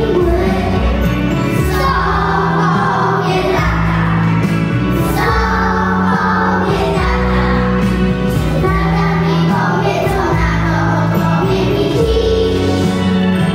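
A group of young children singing a Polish song together in unison over an instrumental backing track with sustained bass notes.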